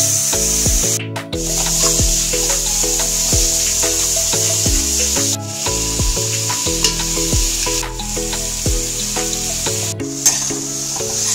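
Masala paste, onions and tomatoes sizzling in hot oil in a metal kadai, with a metal spatula stirring and scraping the pan. Background music with a bass line and a steady beat plays over it.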